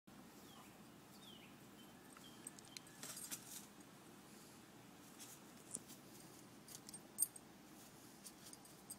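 Near silence, with scattered faint clicks and rustles as a golden retriever moves about in the grass around a tree stump. The sharpest click comes about seven seconds in.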